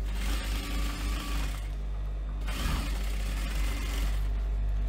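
Global industrial sewing machine stitching through faux leather in short runs, stopping for about a second between them, over the steady hum of its motor.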